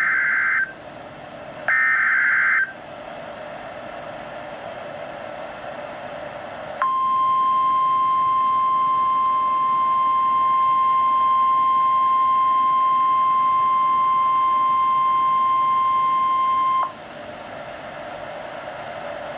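Emergency Alert System activation on NOAA Weather Radio. The last two of the three short, harsh digital SAME header bursts come in the first few seconds, then radio hiss. About seven seconds in, the steady 1050 Hz weather-radio warning tone starts, holds for about ten seconds and cuts off suddenly, leaving hiss.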